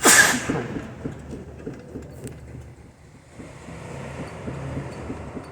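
Car front suspension clunking in quick, light knocks, about four or five a second, as the wheel and steering are worked by hand; the ball joint has play. A brief loud rush of noise comes right at the start.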